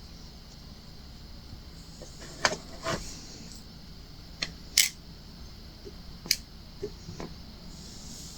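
Sharp, irregular clicks and taps of a diamond painting pen setting resin drills on a hard acrylic ornament, about seven over several seconds, over a faint steady hiss.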